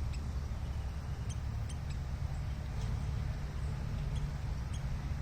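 Short, high chip notes from a small bird, about ten scattered irregularly, over a steady low rumble.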